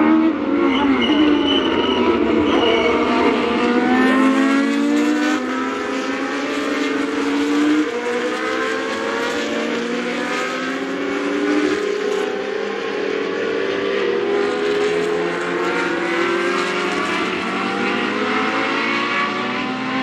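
A pack of historic 1966–1985 Formula 1 cars racing past at full engine noise. Several engines sound at once, their notes rising and falling as the cars go through the corner.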